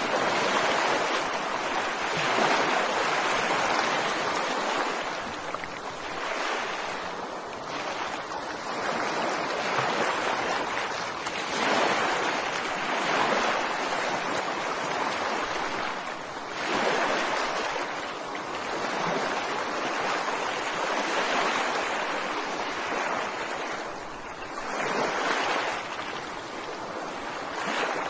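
Ocean waves breaking and washing onto a beach: a continuous surf hiss that swells and falls back every few seconds.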